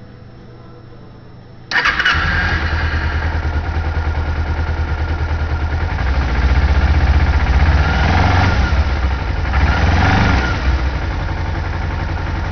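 2008 Kawasaki Ninja 250's parallel-twin engine fires right up a little under two seconds in and settles into running steadily, its note swelling twice in the middle.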